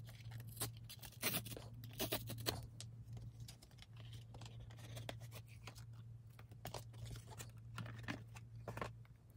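Mailed package being opened by hand: faint, irregular tearing, scraping and crinkling of the packaging, over a steady low hum.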